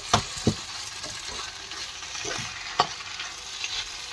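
Chicken liver with tomato and peppers sizzling in a pan while being stirred, the utensil knocking against the pan a few times; the loudest knock comes near the end.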